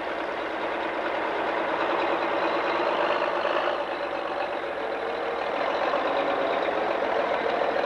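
John Deere Pro Stock pulling tractor's turbocharged diesel engine running flat out as it drags the weight-transfer sled down the track: a loud, steady engine noise that builds slightly as the pull goes on.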